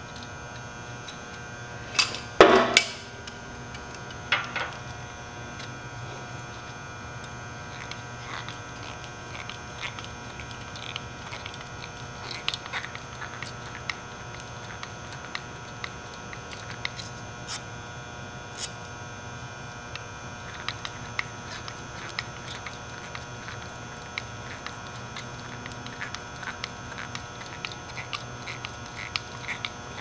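Small metal clicks and taps of hand work on a tiller's clutch-cable fittings, with a few louder knocks about two and a half seconds in and again near four and a half seconds, over a steady electrical hum.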